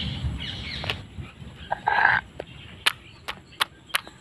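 A stone pestle (nora) knocking a crab's shell against a stone grinding slab to crack it: sharp knocks about three a second, from about three seconds in. Birds chirp in the first second, and a short animal or bird call sounds about halfway through.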